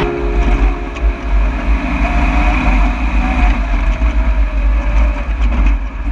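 Ultra4 off-road race car driving along a dirt track, heard from a camera on its bonnet: a steady engine note under a heavy low rumble.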